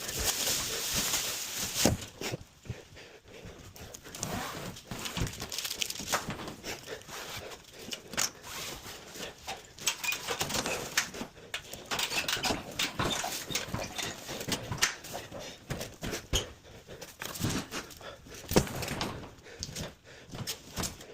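Irregular knocks, bangs and scraping throughout, the clatter of something being forced into place by hand.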